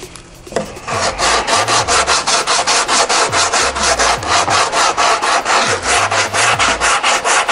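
80-grit sandpaper on a hand sanding block rubbing over hardened lightweight body filler on a carbon-fibre rowing shell hull. It goes in quick, even back-and-forth strokes, several a second, starting about half a second in.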